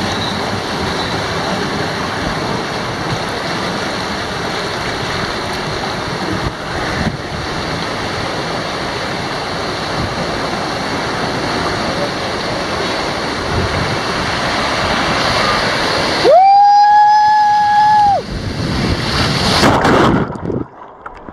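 Water rushing and splashing steadily in a water-slide channel as a tube rider goes down it. About sixteen seconds in, a loud steady tone sounds for about two seconds. A short splash follows, and the sound then turns muffled and much quieter.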